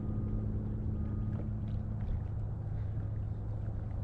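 Fishing kayak under way while trolling: a steady low hum with water washing along the hull.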